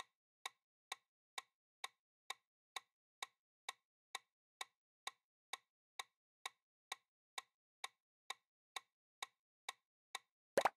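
Countdown-timer ticking sound effect: evenly spaced clock-like ticks, about two a second. Near the end, as the counter reaches zero, a louder double knock.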